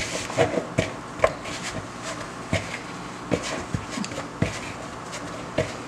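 Hands kneading soft flour dough in a plastic mixing bowl: irregular soft knocks and slaps as the dough is pressed and turned against the bowl.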